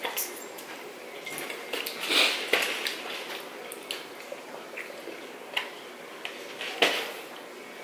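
A child sips through a straw from a lidded foam cup, with scattered small clicks and squishy mouth noises. There is a louder noisy burst about two seconds in and a sharp click near the end.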